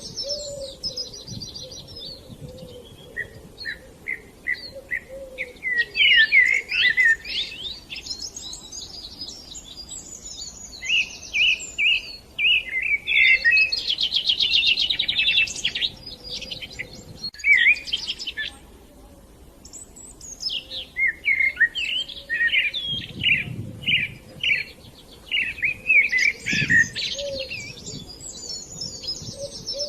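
Songbirds singing: a busy run of chirps, fast trills and short repeated notes, with a brief lull about two thirds of the way in.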